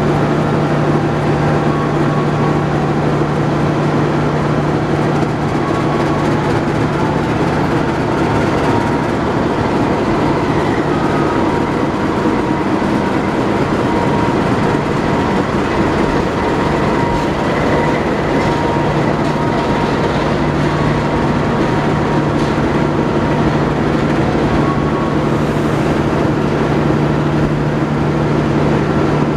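CC 206 diesel-electric locomotive pulling a passenger train slowly past, its engine a steady low hum, with the coaches' wheels rolling and clattering over the track as they go by.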